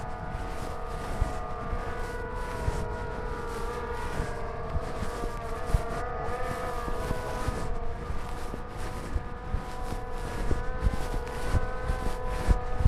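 Quadcopter drone's propellers whining as several steady, slightly wavering tones, over low wind rumble and small knocks at the microphone.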